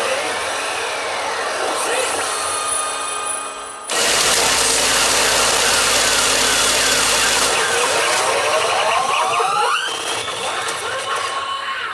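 Pachinko machine sound effects from a Fist of the North Star 9 (P北斗の拳9闘神) machine: dense electronic effects, then a sudden loud blast of noise about four seconds in that lasts a few seconds, followed by rising sweeping tones.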